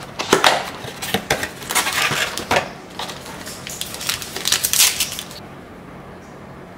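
Crinkling and rustling of paper packaging as an Earl Grey tea bag is taken from its cardboard box and its wrapper torn open by hand, a run of sharp crackles that stops about five seconds in.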